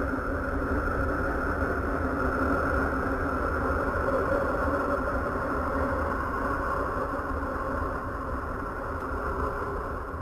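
A steady, droning 'planet sound' recording: a hum of several held tones over a low rumble, fading out near the end.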